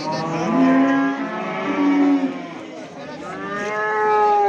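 Cattle mooing: long drawn-out calls overlapping one another, the first ones dying away about halfway through and another long call swelling near the end.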